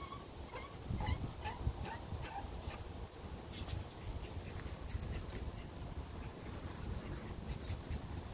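A small dog whining in a few short, faint high whimpers over the first couple of seconds, over a low rumble, with occasional light clicks from a garden hose being handled.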